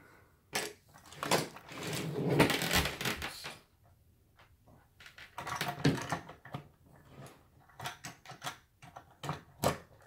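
Handling noise on a tabletop: a coiled phone cord set down with a rustle, then a plastic rotary telephone, a FeTAp 611, knocked and slid about, with scattered clicks and taps.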